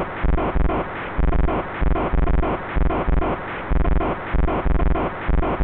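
Intro music with a deep, throbbing beat: pairs of heavy bass thumps about once a second, like a heartbeat, over a sustained synth.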